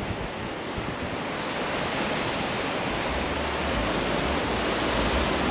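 Ocean surf washing onto a sandy beach as a steady rush, with wind buffeting the microphone; the low wind rumble grows stronger about three seconds in.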